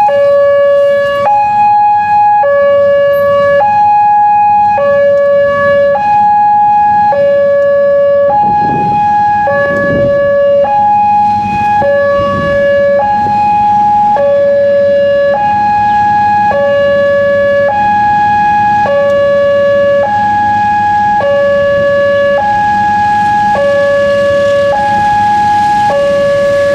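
Railway level-crossing warning siren sounding a two-tone hi-lo alarm, a low tone of about 560 Hz alternating with a high tone of about 840 Hz, switching roughly once a second. It signals a train approaching the closed crossing. A rushing noise builds near the end.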